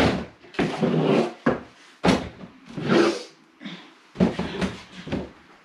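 Groceries being handled: bottles and packages picked up, moved and set down, heard as several short bursts of rustling and knocking.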